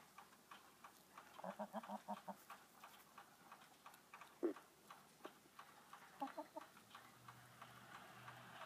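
Backyard hens clucking softly as they forage: a quick run of short clucks about a second and a half in, one louder call near the middle, and another brief run of clucks later.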